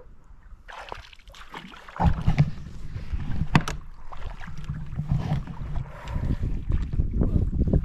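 Kayak being paddled on open lake water: paddle strokes and water splashing against the hull. About two seconds in, a heavy low rumble of wind buffeting the microphone sets in.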